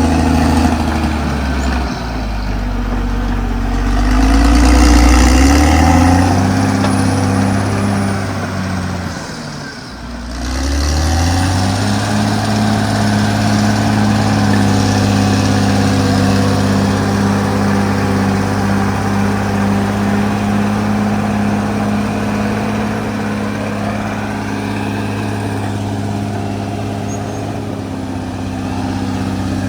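CAT D6R XL bulldozer's diesel engine working under load. Its pitch rises and falls, dips briefly about ten seconds in, then climbs back and holds a steady high note.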